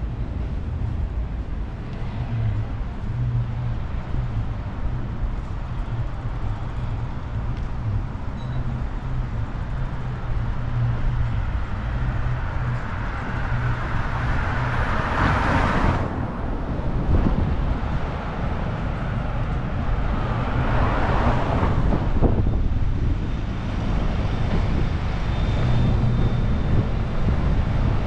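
Street traffic: a steady low engine rumble, with two vehicles passing close by, one around the middle and one about three quarters of the way through.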